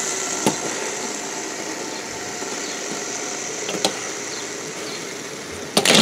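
Several pop-it fidget spinners spinning together on a tabletop: a steady whir from their bearings that slowly fades as they lose speed, with a couple of single clicks and a quick run of sharp clicks near the end.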